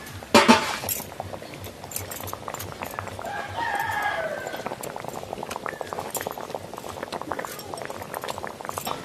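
Fish curry bubbling in a kadai, with rapid small popping of the simmering gravy. A short loud burst of noise comes about half a second in, and a chicken calls once in the background around the middle.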